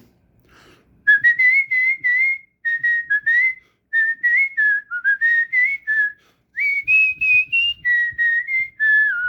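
A man whistling a melody in short phrases of quick notes, with brief pauses between the phrases.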